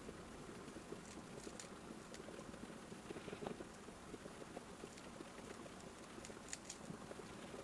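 Rubik's cube being turned quickly by hand: a faint, continuous patter of small plastic clicks and clacks from the layers snapping round.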